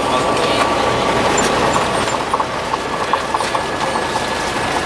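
Light single-engine propeller plane's piston engine and propeller running steadily, heard from inside the cockpit.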